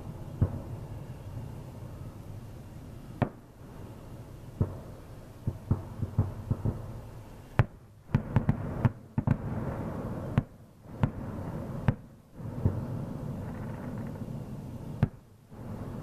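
Fireworks going off at a distance: irregular sharp bangs and booms, with a quick run of several bangs about eight seconds in.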